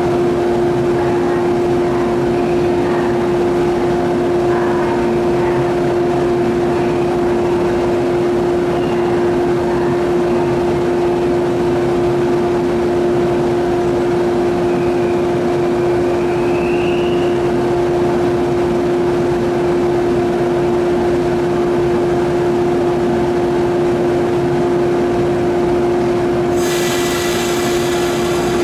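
A stationary electric train hums steadily at a station, one constant electrical tone with noise around it. Near the end a high, many-toned whine joins in suddenly.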